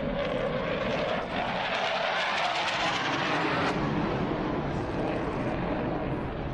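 Jet fighter roaring past on a low pass, its pitch falling over the first couple of seconds; the hiss eases off a little before four seconds in, and a steady engine noise carries on.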